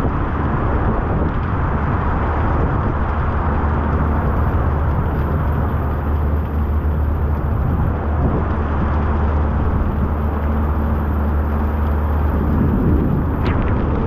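Heavy rain pouring steadily on the street and overhead awning, a dense continuous hiss, with a low steady rumble of motor traffic underneath; a small pickup truck comes closer near the end.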